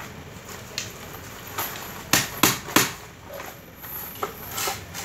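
A hammer knocking on a wooden switch box: a string of sharp, irregular knocks, with the three loudest in quick succession a little over two seconds in.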